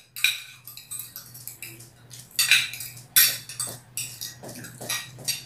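Spoons and forks clinking and scraping on clear glass plates while two people eat, in irregular short clinks of varying loudness.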